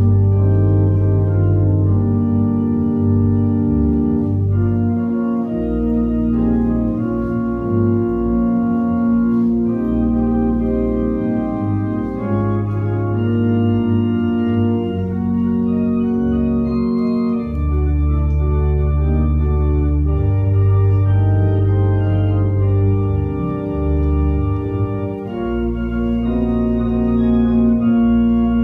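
Organ playing a slow prelude of sustained chords over a deep pedal bass, the notes held and changing every second or two.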